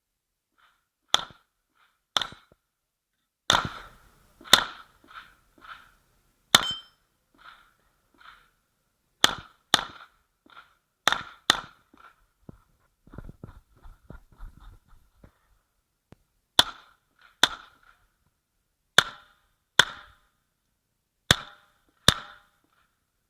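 Uzi Pro 9 mm pistol firing about fifteen single shots, mostly as pairs, each followed by a short echo. Partway through, a few seconds of quieter clatter interrupt the shooting, typical of a reload or movement between targets.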